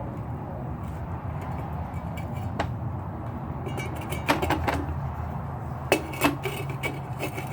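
A hand rivet nut tool being worked, with a few sharp metallic clicks and clacks, two close pairs in the second half, over a steady low hum.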